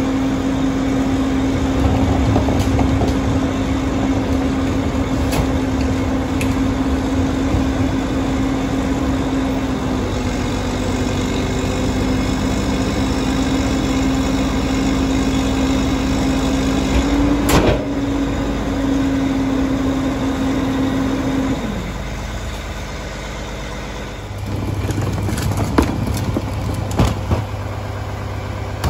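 Mack MR garbage truck running its Heil Formula 4000 rear packer: the engine is held at raised speed to drive the hydraulics, giving a steady whine, with one sharp bang about two-thirds of the way through. The whine drops away at about three-quarters of the way. The diesel then settles to a lower idling hum, with a few clunks from carts near the end.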